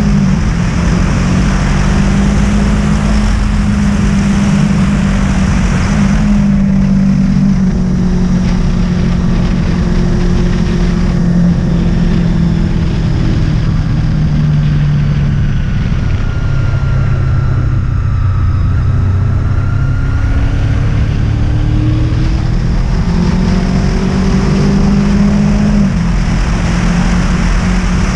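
Honda VFR800's V4 engine running at road speed, with wind noise over the microphone. The engine note drops about halfway through as the rider eases off, then climbs again near the end.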